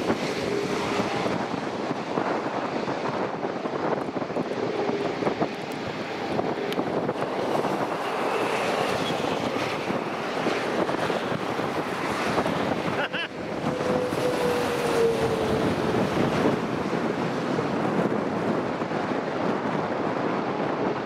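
Steady rushing of strong wind blowing across the microphone.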